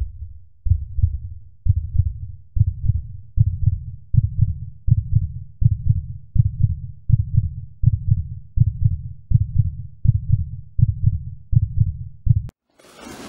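Heartbeat sound effect: deep, regular thumps that speed up gradually from about one a second to nearly one and a half a second, then cut off sharply near the end.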